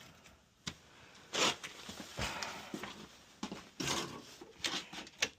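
Irregular clicks and short scraping rubs from hands turning and working the combination dial of an old safe.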